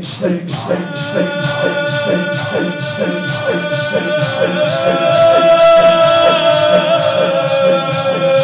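A mourning noheh in shoor style: a crowd strikes their chests in unison, a steady beat of about two and a half strikes a second. Over it a male reciter holds one long sung note from about a second in, which steps up in pitch midway and falls back near the end.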